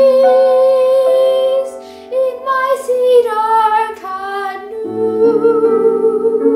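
A boy's unbroken treble voice singing a slow art song with piano accompaniment. He holds a long note, breaks off briefly, sings a short wavering phrase, and piano chords come in under another held note about five seconds in.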